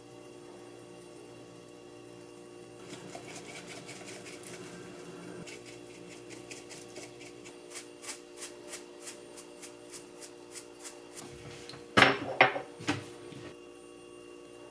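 Dried parsley flakes shaken from a spice shaker over a dish, making light ticks about three a second for several seconds. Near the end come three loud knocks of hard items set down on the stone countertop.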